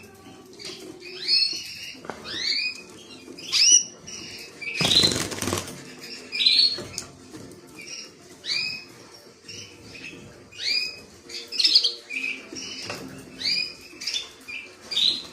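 Canary giving short, repeated chirping calls, one every half second to a second, with a brief burst of wing flapping about five seconds in.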